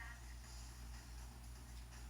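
Faint steady low rumble of a car cabin while driving.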